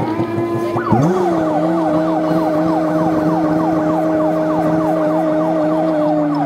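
Fire engine sirens sounding together: a steady held tone, joined about a second in by a second siren winding up from low, under a fast falling sweep repeating about five times a second.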